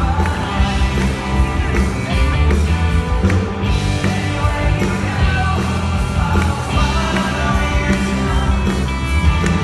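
Live rock band playing: electric guitars, bass and drums, with a lead singer singing.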